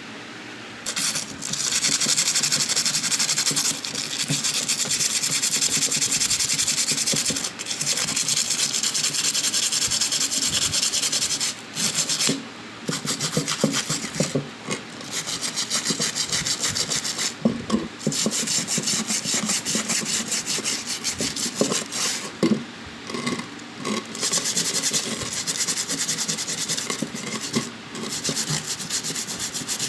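Continuous abrasive rubbing, like sanding or rasping, on the workpiece. It breaks off briefly several times and starts again.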